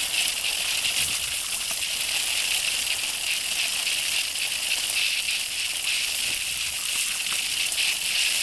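Garden hose spray nozzle running a steady, hissing jet of water onto leaf-littered ground.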